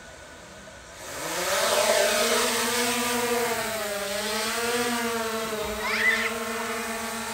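DJI Mavic Air 2 drone's propellers spinning up for takeoff about a second in, rising to a steady buzzing whine that wavers a little in pitch as the drone lifts off and hovers.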